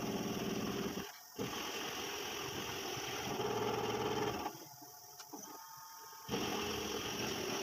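CNC milling machine's end mill roughing out a metal plate: a steady cutting noise with a faint whine, dropping out briefly about a second in and again for nearly two seconds after the middle before resuming.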